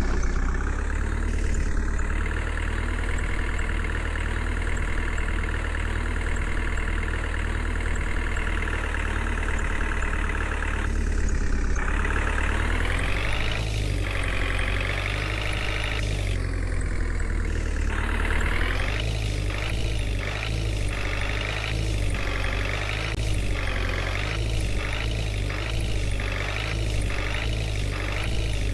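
Heavy vehicle engine running steadily, its pitch shifting now and then. In the last third it takes on a regular pulsing of about one and a half beats a second.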